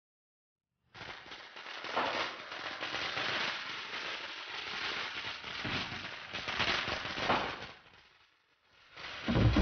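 A string of firecrackers going off in a dense, rapid crackle for about seven seconds, then dying away, followed near the end by a single heavy boom.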